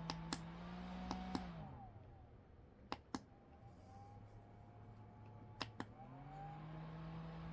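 Small battery-powered camping fan running with a faint motor hum that slows and drops in pitch after button clicks, then speeds back up to full speed near the end. Several sharp plastic button clicks, some in quick pairs, as the settings are cycled.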